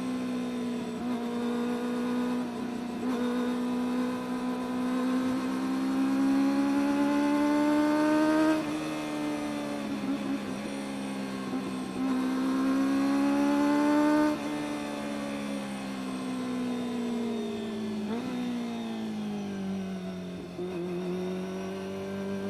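Kawasaki ZX-25R's inline-four engine under way. Its note climbs steadily under throttle and drops sharply twice, about eight and fourteen seconds in, then winds down over several seconds.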